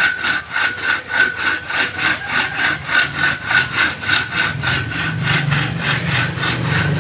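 Two-man traditional hand saw (graji esek) cutting through timber, pushed and pulled in quick, even strokes, about three or four a second.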